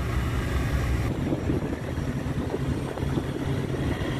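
Inboard diesel engine of a mechanized fishing trawler running steadily underway, a low drone with a hiss of wind over it; the hiss thins about a second in.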